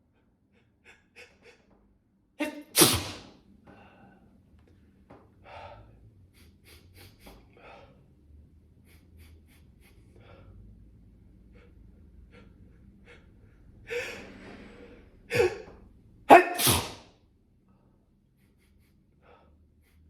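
A person sneezing hard: one big sneeze about three seconds in, quiet breathing and sniffing, then a gasping wind-up and two more sneezes in quick succession, the last the loudest.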